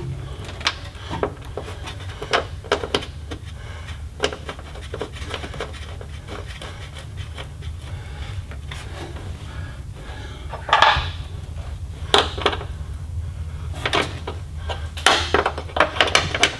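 Hand work on a truck's air seat: scattered clicks, knocks and rubbing of tools and parts, with a brief burst of noise about eleven seconds in and a run of sharper clicks near the end, over a steady low hum.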